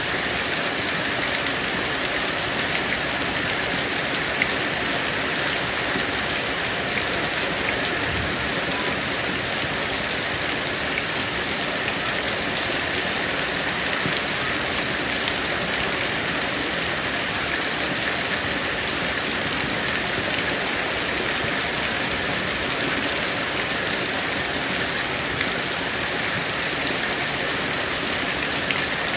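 Heavy rain falling steadily, an even rush of water with faint scattered drop ticks.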